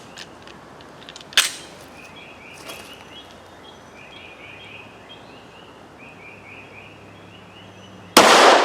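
Glock 19 pistol firing a single 9mm shot, a 115-grain SIG hollow-point round, near the end: a loud crack with a fading echo. About a second in there is a single sharp click, and faint repeated chirps sound in between.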